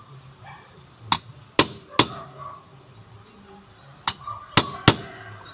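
Hammer striking metal, six sharp ringing blows in two groups of three, during work on a Piaggio Ape City's propeller shaft.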